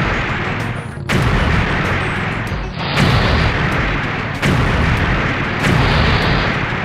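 Cartoon monster truck sound effects: a loud, rough engine noise with sudden booming swells about every one and a half seconds, over background music.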